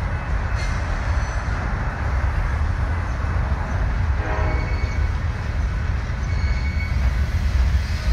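Freight train of loaded flatcars rolling past: a steady low rumble with the rattle and clatter of the cars.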